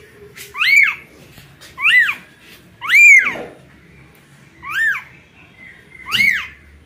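Newborn kitten mewing for its mother: five short, high-pitched calls, each rising and falling in pitch, about one every second with a longer pause in the middle.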